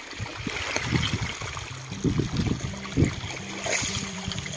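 Water from a solar-powered submersible pump gushing and splashing out of the discharge pipe, with irregular low knocks. A steady low hum joins about two seconds in.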